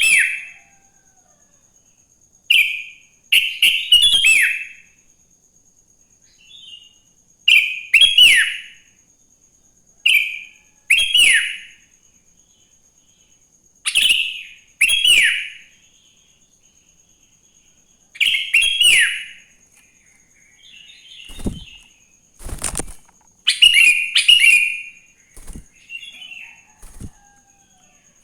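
Sooty-headed bulbul singing short, bubbly whistled phrases, one every three to four seconds. Two dull thumps come about three-quarters of the way through.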